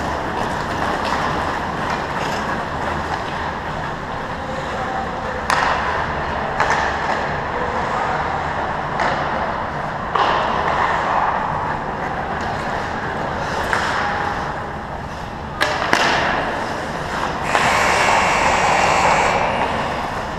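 Ice hockey game on a rink: skates scraping on the ice, with sharp echoing clacks of sticks and puck about five and a half, ten and sixteen seconds in. A longer, louder stretch of scraping near the end.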